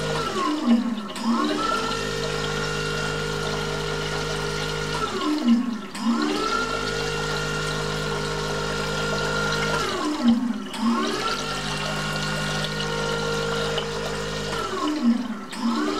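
Magnetic-drive pump of a digital liquid filling machine running timed fill cycles: its motor whine falls away as each dose ends, then rises again and holds steady while liquid gushes through the tubing. Each cycle repeats about every five seconds, three times over.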